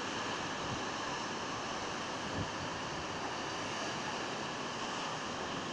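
Steady rush of sea waves breaking on a rocky shore, mixed with wind.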